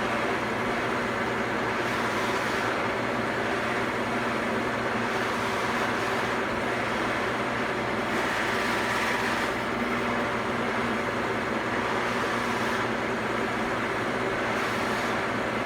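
Electric buffing machine running steadily with a hum, its wheel polishing the bass's lacquer finish with rough rouge. A hiss from the wheel on the lacquer swells and fades.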